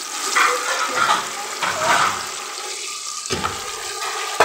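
Tomato juice being poured from a plastic jug into a cooking pot of hot oil: a steady splashing, pouring sound with sizzling.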